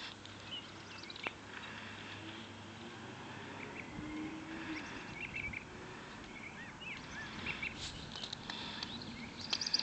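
Small birds chirping now and then, short high calls, over faint outdoor background noise, with a few louder rustles or clicks near the end.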